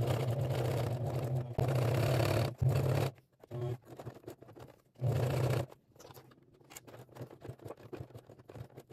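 Home electric sewing machine stitching through leather and its fabric lining in short runs: it runs for about three seconds with two brief pauses, stops, runs again for under a second around five seconds in, then only soft rustling and clicks of the leather being handled.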